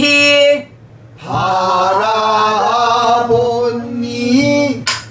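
A woman singing pansori in a low, full voice, self-accompanied on a buk barrel drum: a held note ends about half a second in, then after a short breath a longer phrase with wavering, bending pitch. Near the end comes a single sharp knock of the drumstick on the buk.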